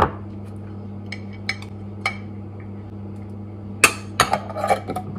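Metal spoon clinking and scraping against a glass jar and a ceramic bowl while scooping peanut butter: a few light clinks in the first two seconds, then a louder run of knocks and scrapes near the end, over a steady low hum.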